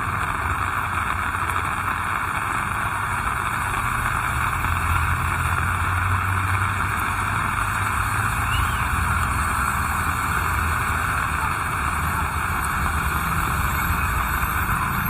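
Heavy rain falling steadily, with a low rumble of road traffic that swells around the middle.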